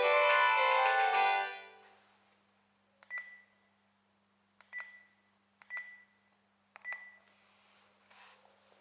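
Panasonic KX-TGH710 cordless phone handset playing the last notes of a polyphonic ringtone, which fades out about a second and a half in. Then four button presses on the handset, each a click followed by a short high beep.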